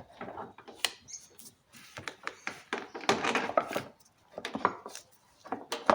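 Plastic engine cover parts being handled and pushed into place by hand: scattered light clicks and knocks with stretches of scraping and rubbing.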